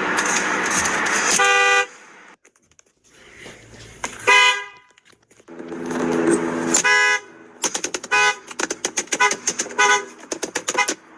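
Car horns honking in a string of separate clips: a few single blasts, then a run of short, quick toots in the second half.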